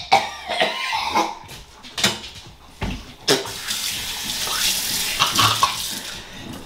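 Kitchen faucet running into the sink as a steady rush of water for the last few seconds. It is preceded by a man's wordless, choked vocal noises in the first two seconds, just after a mouthful of mustard, and a low bump just before the water starts.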